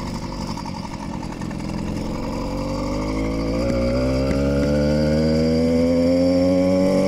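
Small two-stroke engine of a motorized bicycle running under way, its revs and pitch climbing steadily from about two or three seconds in and growing louder as the bike speeds up.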